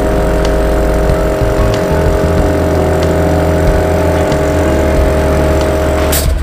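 Steady mechanical hum of a running motor, holding a constant pitch, then changing abruptly near the end.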